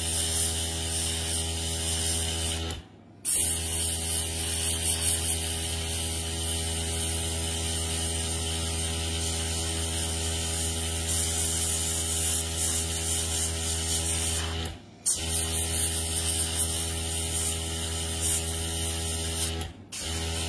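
Small airbrush compressor running with a steady hum while the airbrush hisses, spraying nail paint onto a nail tip. The sound breaks off briefly three times.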